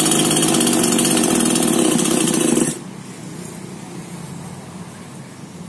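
Small two-stroke chainsaw engine running at high revs on a test run after a rebuild with a new piston, rings and carburetor, then cutting out abruptly a little under three seconds in.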